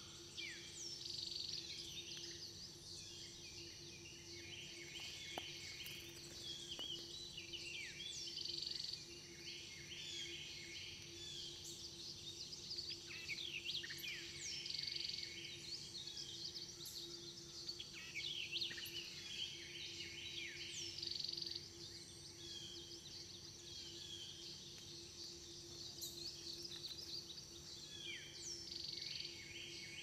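Woodland birds singing, several overlapping songs with repeated phrases and downward-sweeping notes, over a steady high-pitched drone.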